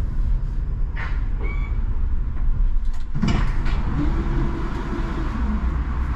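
Škoda 39T tram heard from on board: a steady low rumble with sharp knocks about a second in and about three seconds in, and a brief hum near the middle.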